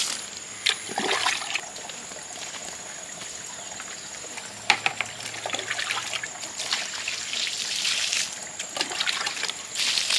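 Water sloshing and trickling in uneven bursts, with a few sharp clicks.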